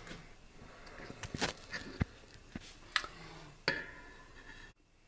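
Small metal tools being handled: a series of irregular light clicks and knocks, one near the end with a brief metallic ring, as a small drill bit is picked out and readied.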